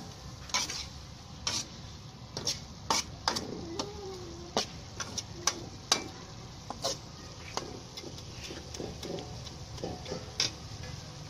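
Metal spatula scraping and clanking against a metal wok while stir-frying meat and vegetables, over a steady sizzle. The strikes come irregularly, about once or twice a second.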